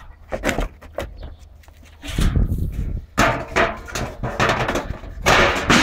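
A wooden board knocked and scraped against a block doorway while being moved into place: a string of irregular knocks, with louder rough scraping about two seconds in, again around three seconds, and near the end.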